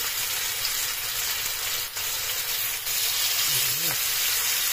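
Steaks sizzling in hot olive oil in a skillet: a steady frying hiss.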